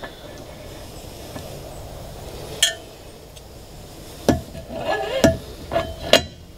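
Stainless steel outboard propeller being slid onto the splined propeller shaft, clinking against the shaft and thrust washer. One click comes about two and a half seconds in, then four quick metallic knocks near the end, some with a short ring.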